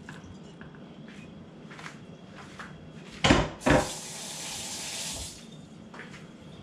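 Two sharp knocks, then a kitchen faucet running briefly for about a second and a half before it is shut off.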